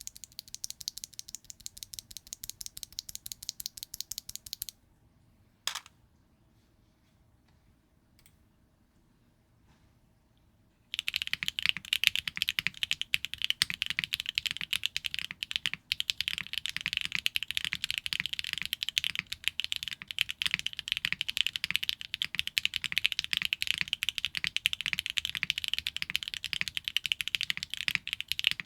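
Custom mechanical keyboard with HMX Martini V2 rail-bottom-out linear switches on a carbon fiber plate with no foam, being typed on. A quieter run of rapid keystrokes and then a single click, a few seconds of silence, then fast continuous typing, louder, from about eleven seconds in.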